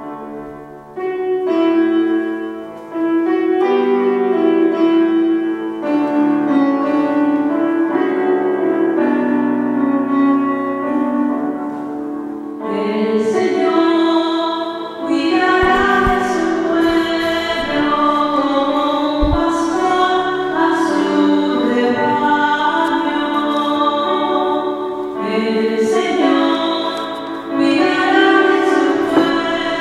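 Electronic keyboard in piano voice playing a slow introduction to a sung responsorial psalm. A woman's voice comes in singing over it about halfway through.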